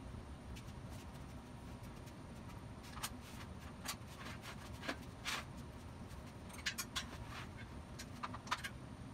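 Light clinks and knocks of a square steel tube and clamps being moved about on a steel welding table, scattered irregularly and mostly in the second half, over a low steady hum.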